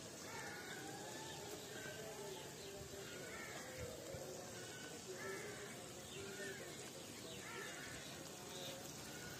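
Faint outdoor background with repeated distant calls, each short and curving in pitch.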